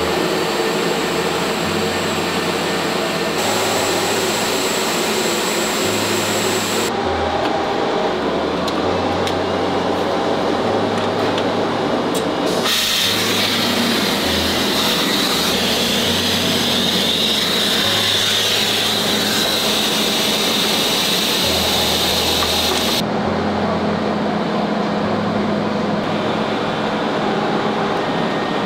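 Suction hose of a 3D printer's powder-handling station vacuuming up white printing powder: a loud, steady rushing hiss that changes tone abruptly several times and is harshest and brightest through the middle third.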